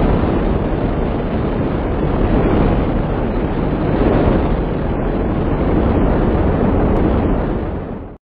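Rocket-launch sound effect: a loud, steady rushing noise of rocket exhaust that cuts off suddenly near the end.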